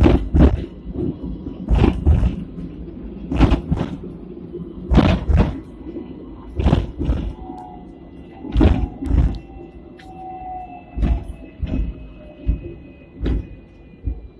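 Hong Kong double-decker tram running on street track, heard from inside at the front: heavy knocks, mostly in pairs, about every one and a half to two seconds as the wheels pass over the track, over a steady rumble. A faint thin whine slowly falls in pitch.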